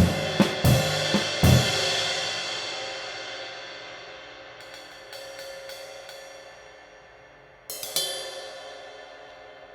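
20-inch B20 bronze medium ride cymbal played with the drum kit, a few hits with drums under them in the first second and a half, then left to ring and slowly fade. A few light strokes on the cymbal around five seconds in, then one hard hit near eight seconds that rings out.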